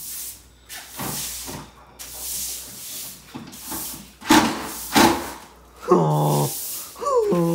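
A long-handled broom sweeping debris across paper floor protection in short swishing strokes, about one a second, the strongest a little past the middle. Two short pitched sounds come near the end.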